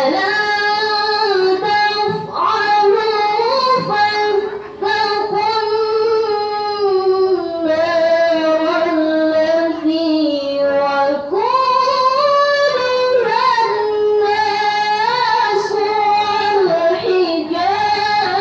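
A girl's solo Qur'an recitation in melodic tilawah style, sung into a microphone. Her long drawn-out phrases are heavily ornamented and rise and fall in pitch, with short breaks for breath about four and a half seconds in and again near eleven seconds.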